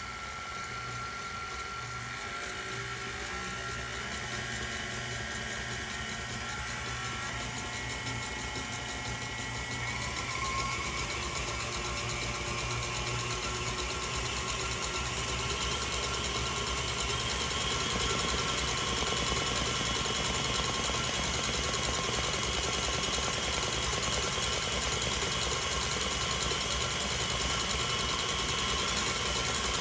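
Stand mixer whisking Swiss meringue, its motor running with a steady hum. It grows louder in steps partway through as the speed is turned up to 7.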